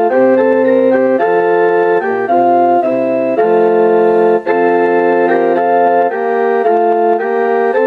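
Casio LK-S250 keyboard playing one of its built-in song-bank tunes: a melody over held chords and a bass line, notes changing every half second to a second and held at an even level without dying away, with no drums.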